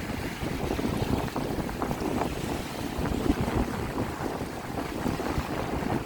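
Wind gusting against the microphone with a steady low rumble, over small lake waves lapping and splashing at the shore.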